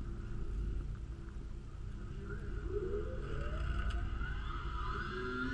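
Low wind rumble on the microphone. About two seconds in, the RC plane's motor and propeller spool up with a rising whine, throttled up for a hand launch.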